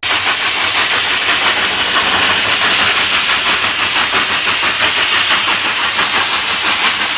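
Two steam locomotives working a train: a loud, steady hiss of steam and exhaust, with fast, even chuffs pulsing under it.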